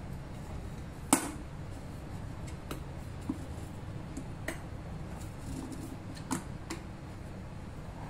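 Handling noises from a stainless steel electric kettle being turned over in the hands: a sharp click about a second in, then a few lighter clicks and taps over a steady low background hiss.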